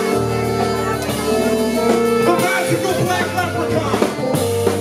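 Live soul-jazz and hip hop fusion band playing a groove: held chords over a steady bass line, with drum kit hits.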